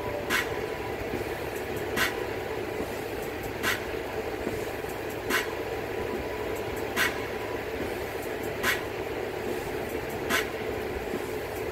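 Steady mechanical hum with a short, sharp click repeating evenly about every second and a half to two seconds.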